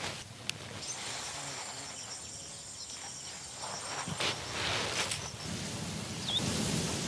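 Rural outdoor ambience: a steady, high-pitched insect buzz for the first few seconds, which stops about four seconds in. Rustling follows, then a brief chirp near the end.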